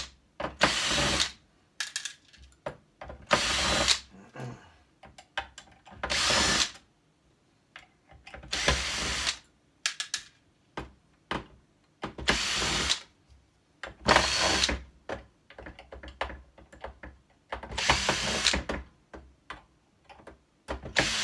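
Cordless drill-driver running in about a dozen short bursts, each a second or less, backing small screws out of a sheet-metal panel, with small clicks and taps between the runs.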